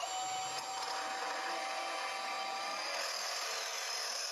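Milwaukee Fuel cordless deep cut band saw cutting through a 0.065-wall, half-inch by inch-and-a-half metal tube: the motor and blade run at a steady pitch through the cut, then stop as the cut finishes.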